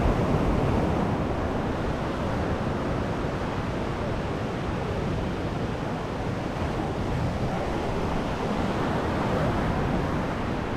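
Sea surf washing steadily onto the beach, swelling and easing slowly, with wind rumbling on the microphone.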